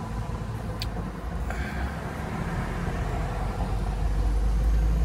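A road vehicle going by, its engine and tyre noise a low rumble that grows gradually louder.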